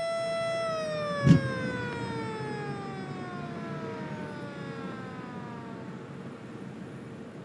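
A high whine from a spinning rotor, steady at first, starts winding down in pitch about half a second in and keeps falling. One sharp bang comes about a second in, over a low rumble, while the pulsejet of a rocket snowmobile is being started.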